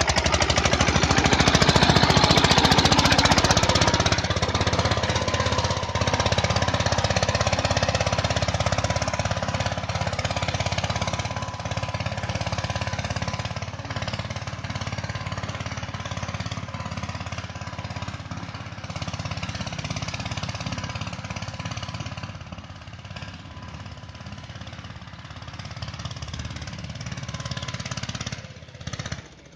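Mahindra Yuvraj 215 mini tractor's single-cylinder diesel engine running under load as it pulls a plough through the soil. It is loudest in the first few seconds and grows fainter as the tractor moves away, dropping off sharply just before the end.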